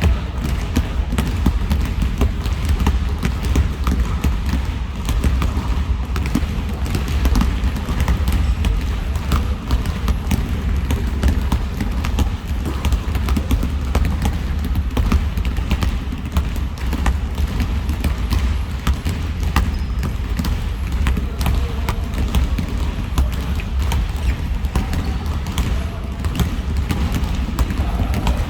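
Several basketballs bouncing on a gym floor at once, a dense, irregular stream of overlapping bounces.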